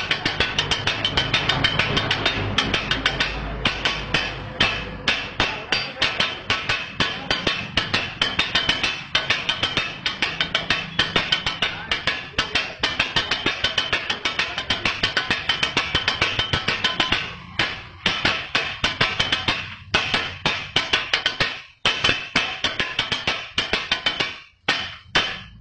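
Kothu parotta being chopped on a flat iron griddle with two metal blades: a fast, rhythmic clatter of metal-on-metal strikes, with a few short breaks near the end.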